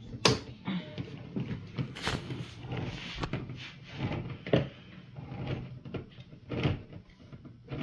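Hand-held crank can opener cutting around the lid of a metal can: irregular clicks and clunks as the key is turned.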